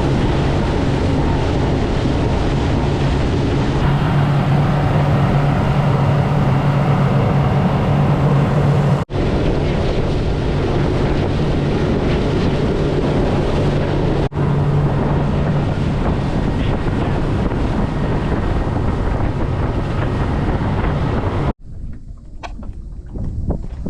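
Outboard motor of a 20-foot Carolina Skiff running under way, with a steady low engine hum, water rush and wind buffeting the microphone. The sound breaks off abruptly twice as clips change, then drops to much quieter surroundings near the end.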